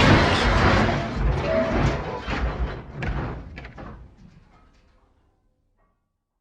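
Tail end of a train crash sound effect: crashing and clattering impacts, with a few separate knocks, fading away over about five seconds.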